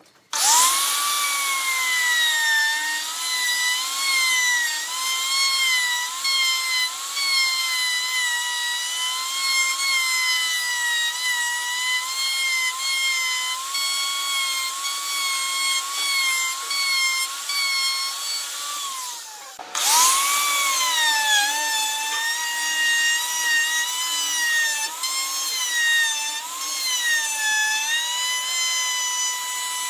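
Electric plunge router (DongCheng) starting up and running at high speed, its whine dipping and wavering in pitch as the bit cuts into the wooden tabletop. Near two-thirds of the way through, the motor cuts out for a moment, then starts again and spins back up.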